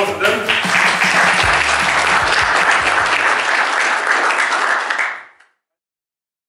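Audience applauding steadily, with music faintly underneath for the first few seconds; the applause fades and cuts off about five seconds in.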